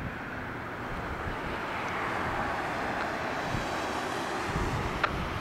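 Boeing 737-300's CFM56-3 turbofan engines at take-off climb power, heard from the ground as a steady, distant jet noise while the aircraft climbs away, swelling slightly midway. Wind gusts on the microphone come and go underneath.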